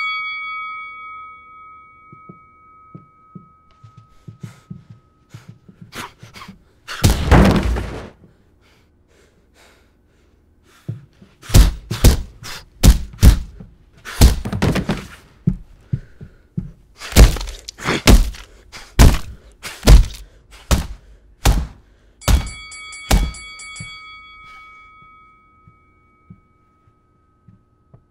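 A boxing ring bell's ring dies away, then come a series of heavy punch thuds, about one or two a second. Near the end the bell is struck again and rings out.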